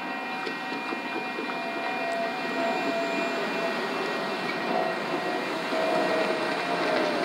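Road traffic crossing a light-rail grade crossing: car engines and tyres on the road, getting louder toward the end, over a steady high-pitched hum.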